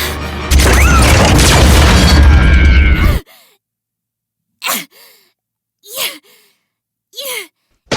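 A loud, dense swell of dramatic film score with a deep rumble cuts off suddenly about three seconds in. Then come three short breathy sighs or whimpers, each falling in pitch, about a second apart, from a distressed person.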